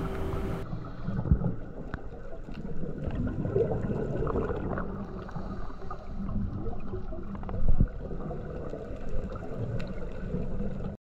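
Muffled underwater sound heard through an action camera's waterproof housing: a low, steady rush of water with scattered small clicks and knocks, and one louder gurgling burst about eight seconds in. Cuts off abruptly just before the end.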